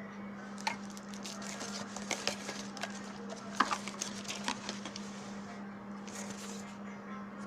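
Light clicks and taps of objects being handled, thickest in the first half with one sharper click about three and a half seconds in, over a steady low hum.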